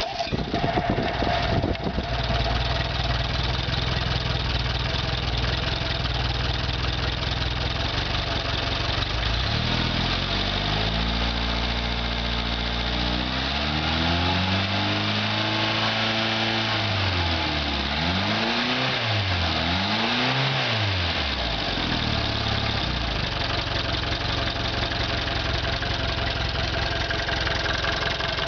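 Bearcat 55 hp engine catching and settling to a steady idle. From about ten seconds in it is revved up and down several times, then it drops back to idle near the end.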